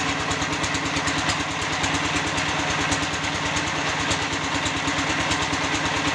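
Small engine driving a concrete block (batako) press machine, running steadily with a fast, even pulse.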